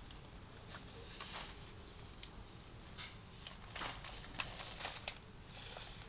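A comb drawn through a reborn baby doll's hair close to the microphone: a series of short rustling strokes at uneven intervals, the loudest about four to five seconds in, over a low steady rumble.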